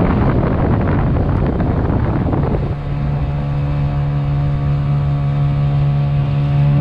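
Honda GX50 four-stroke, air-cooled 50cc engine on a small kayak/SUP outboard running at a steady speed. For the first two and a half seconds a rushing noise of wind and water largely covers it; after that its steady engine note stands out clearly.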